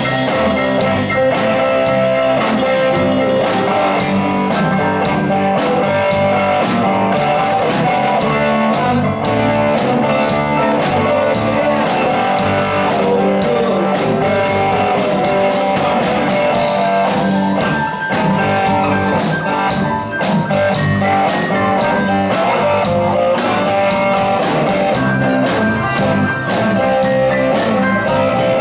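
A live rock band playing, with electric guitar, electric bass, keyboards and a drum kit keeping a steady beat.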